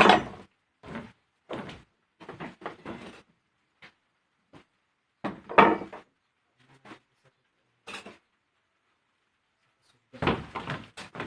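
Scattered short knocks and thumps, a few seconds apart, the loudest at the very start and about five and a half seconds in.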